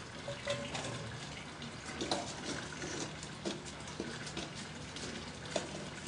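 Charcoal briquettes being moved and arranged under a cast-iron Dutch oven: irregular light clinks, taps and scrapes over a faint hiss.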